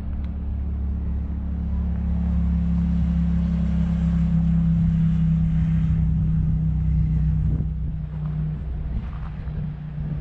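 A motor vehicle's engine droning as it passes, growing louder over the first few seconds, holding, then easing off near the end.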